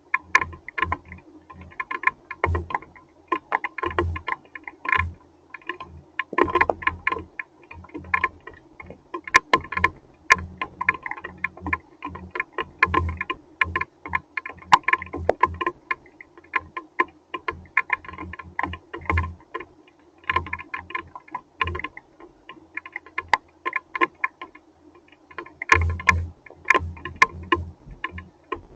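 Hailstones striking a hard surface: a dense, irregular clatter of sharp clicks and taps, some with a short ringing tone.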